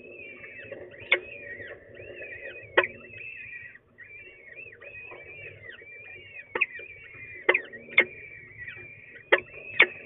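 Peregrine falcon chicks making continual high, wavering cheeping calls while being fed, with about seven sharp taps and clicks as the adult tears at the prey bird on the gravel floor of the nest box.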